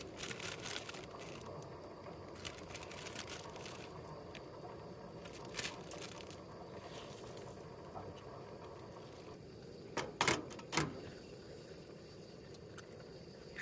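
Scattered light clicks and knocks of cooking utensils being handled over a steady faint hiss, with a few sharper clicks about ten seconds in.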